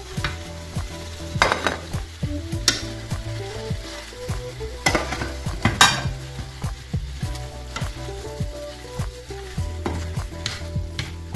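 Wooden spatula stirring and scraping sautéed peppers, onion and flaked salt cod in a frying pan, with irregular scrapes and knocks over the sizzle of the hot food.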